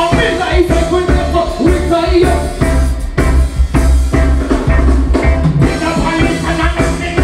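Live reggae band playing, with a heavy pulsing bass line and drum kit and a singer's voice on top.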